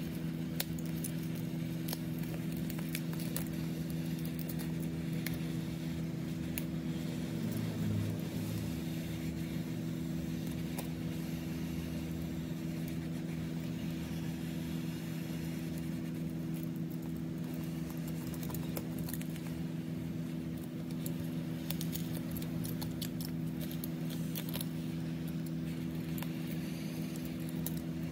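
A steady low electrical hum from repair equipment, with scattered small clicks and light scraping of hand tools working on an iPhone X's back glass.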